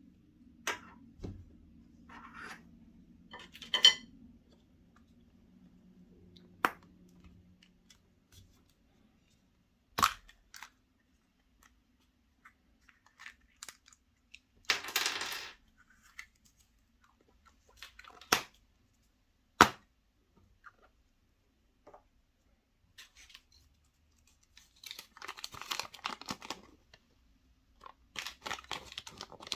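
Foil wrapper of a chocolate surprise egg crinkling and tearing as it is unwrapped, with scattered sharp clicks and taps from handling the egg and its contents. A brief burst of crinkling comes about halfway through and a longer stretch of rustling near the end.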